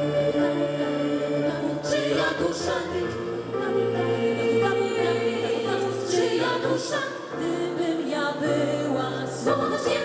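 Background music of sustained choir-like voices holding chords that shift every second or two, with a few brief crashes.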